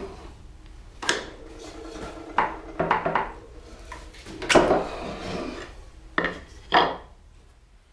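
Wooden knocks and rubbing from a board being shifted in a wooden-screw shoulder vise: a series of separate clunks, the loudest about four and a half seconds in, followed by about a second of scraping, with two more knocks near the end.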